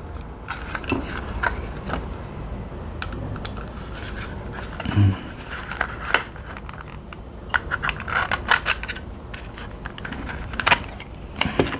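A plastic computer mouse being handled and worked on a desk: scattered light clicks, taps and scrapes of plastic, with a few sharper clicks near the end.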